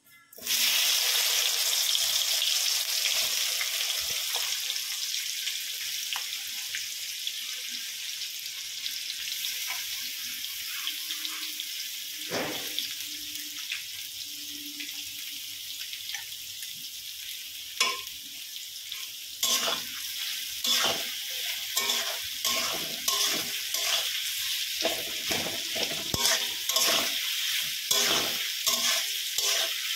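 Food sizzling in hot oil in a pan. The sizzle starts suddenly and settles to a steady hiss. From about two-thirds of the way through, a spoon stirs and scrapes the pan in quick repeated strokes.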